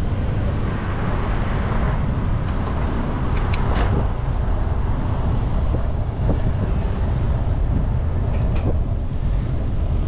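Steady rush of wind and road rumble from a bicycle riding along a city street, with a few brief clicks about a third of the way in and again later on.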